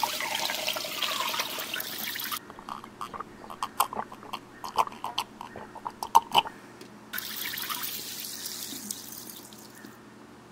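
Running water, like a tap running into a sink, in two spells of a couple of seconds each, with short clinks and knocks in between.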